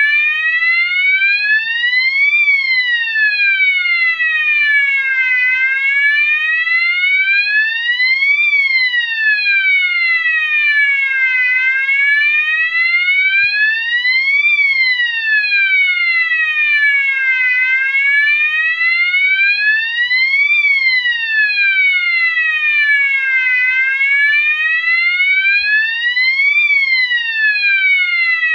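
GE AS363 electronic alarm signal sounding its slow siren tone: a wail that sweeps from about 500 Hz up to 1200 Hz and back down again, each full rise and fall taking about six seconds. It repeats steadily, a little under five cycles.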